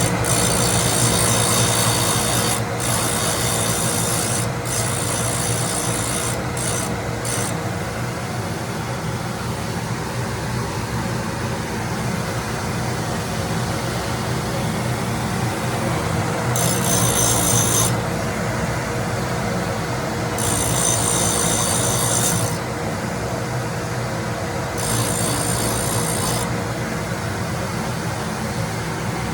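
A grinder's motor runs steadily with a held tone while the grinding wheel is passed over the cutter's edges again and again. Each pass gives a bright hissing grind lasting a second or two, several in quick succession early on and three more spaced out later.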